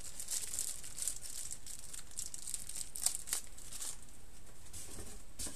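Thin plastic bag crinkling as it is handled and opened: irregular high-pitched crackles, the sharpest about three seconds in.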